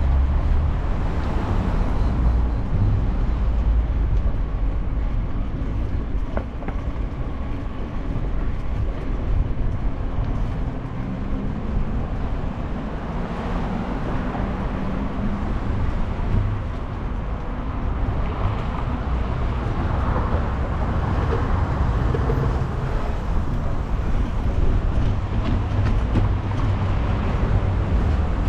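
Steady rumbling and rattling of a bicycle ride over sidewalk paving, picked up by a GoPro mounted on the bike: tyre noise and frame vibration with many small ticks through it.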